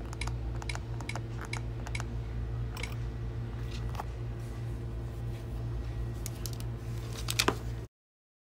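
Checkout-counter room sound: a steady low hum with scattered light clicks and taps, like keys and handling at the register, one louder clack near the end. It cuts off abruptly just before the end.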